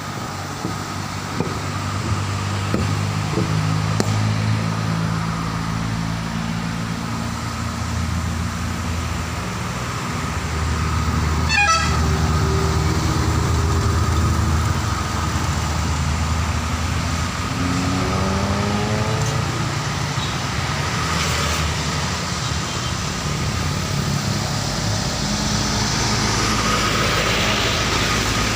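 Heavy diesel road vehicles, buses and trucks, going by, their engines running and revving with the pitch rising and falling as they pass.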